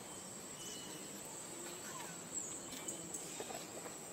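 Steady high-pitched drone of forest insects, with a few faint short calls over it.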